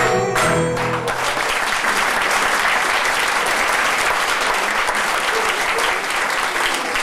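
A pit orchestra ends a song on its final chord, which cuts off about a second in. An audience's applause follows and carries on steadily.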